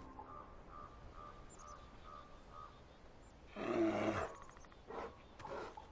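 A wild animal gives one harsh call lasting under a second, about three and a half seconds in, followed by two weaker calls, with faint bird chirps in the background.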